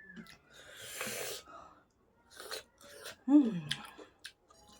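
Close-miked eating sounds: a breathy hiss of an inhale or slurp about a second in, small clicks of chewing, and a short voiced 'mm' that falls in pitch.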